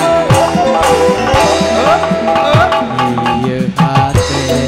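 Live band music driven by Sundanese kendang hand drums, the large drum and small kulanter struck in a quick, busy rhythm over keyboard and other instruments, with a couple of notes sliding up in pitch.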